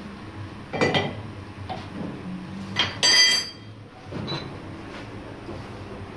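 Metal-on-metal clanks from a lathe's tool post and carriage being handled: one clank about a second in, then a louder clang near three seconds that rings on briefly. A softer knock follows, all over a low steady hum.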